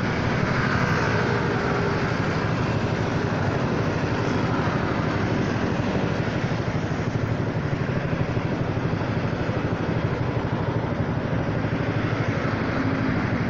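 A 2018 Honda Forza 300 scooter's single-cylinder engine idling steadily through an aftermarket exhaust fitted with a baffle insert, which gives it a quiet note, with surrounding traffic running.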